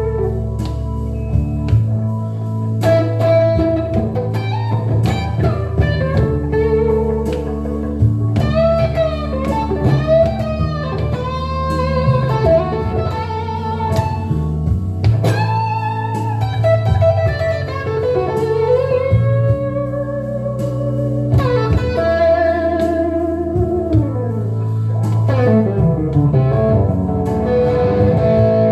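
Electric guitar, a Telecaster, playing an improvised blues lead with string bends and vibrato over steady low sustained notes underneath.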